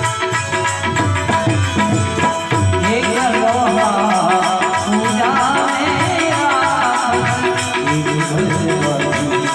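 Gujarati devotional folk music: steady hand-drum and rattle-type percussion, with a wavering melody line coming in about three seconds in.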